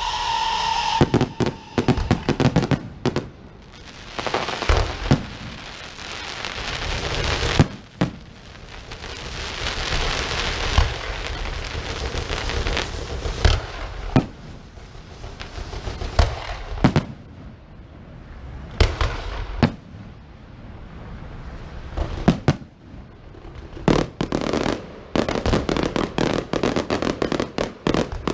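Fireworks going off: many sharp bangs at irregular intervals, with stretches of loud hissing and crackle between them.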